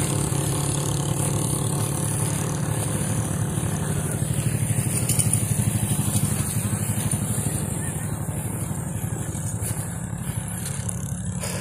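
Motorcycle engine idling steadily: a low, evenly pulsing hum.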